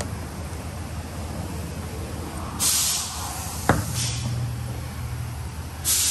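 A steady low hum with two short, loud bursts of hiss about three seconds apart and a single sharp click between them.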